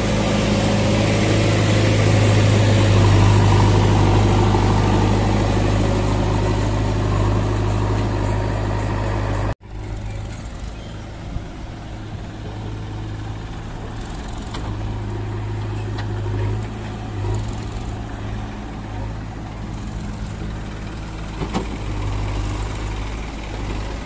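Diesel engines of a JCB backhoe loader and a tractor running close by, a steady low drone. About ten seconds in the sound cuts off abruptly, then continues quieter as the tractor engine runs with a few light clunks.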